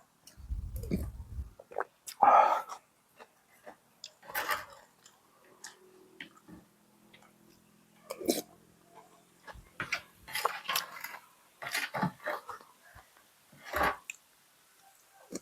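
Close-up eating sounds: a person slurping and chewing stewed-beef noodle soup in short separate bursts, the loudest a little over two seconds in. A low thump comes about a second in.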